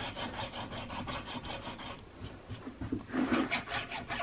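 Hand file rasping in short, quick strokes, about five a second, across a sheet-brass patchbox side plate inlet into a wooden rifle stock, taking the brass down flush with the wood. The strokes ease off about two seconds in and pick up again near the end.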